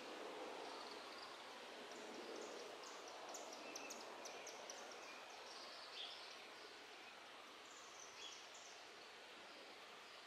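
Faint outdoor ambience: a steady soft hiss with small birds chirping high and briefly, a quick flurry of chirps in the first half and a few more near the end.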